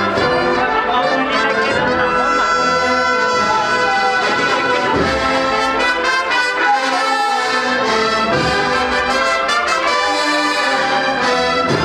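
Agrupación musical band playing a Spanish processional march, trumpets and trombones holding sustained chords that change every second or two.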